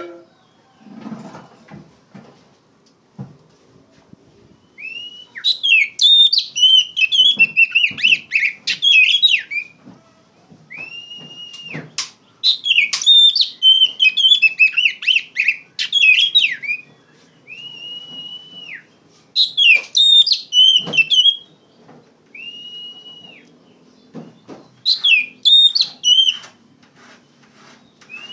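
Oriental magpie-robin (kacer) singing loudly in full voice. Each phrase opens with a drawn-out clear whistle, then breaks into a rapid, varied run of chirps and trills, repeated about four times. A few faint knocks sound in the first few seconds.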